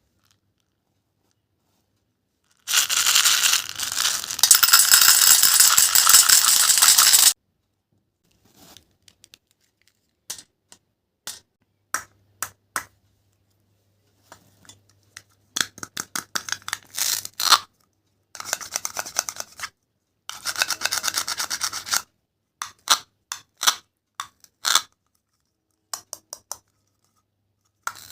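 Rough scraping and tearing rasps in bursts. One long rasp lasts about four and a half seconds near the start, followed by scattered clicks and short rasps, then several longer rasps of a second or two around the middle, with dead silence between them.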